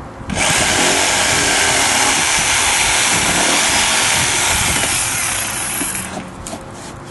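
Corded electric jigsaw cutting through a plastic car bumper cover, trimming away the small tabs left along the cut-out line. It starts about a third of a second in, runs steadily, and stops about a second before the end.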